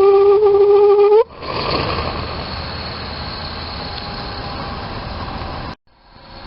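Toyotomi laser-burner kerosene heater resonating with a loud steam-whistle-like hoot, one steady tone with overtones that rises slightly and stops about a second in; the resonance is the sign of the burner running short of air. The burner then runs on with a steady rushing sound, cut off abruptly near the end and followed by quieter running.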